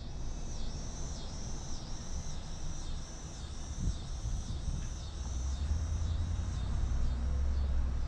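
Car driving slowly, a steady low road and engine rumble that grows heavier about five and a half seconds in. A high chirp repeats about twice a second above it.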